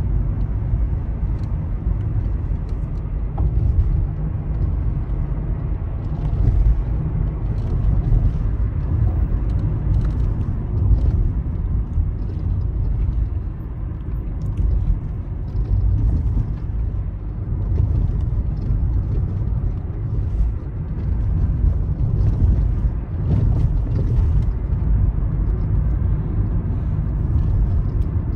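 Steady low rumble of a car on the move, engine and tyre noise heard from inside the cabin.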